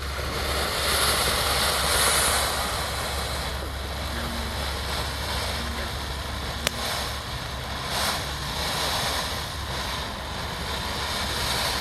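Small sparkler-type fountain firework hissing steadily as it sprays sparks, swelling near the start, with one sharp crack about two-thirds of the way through.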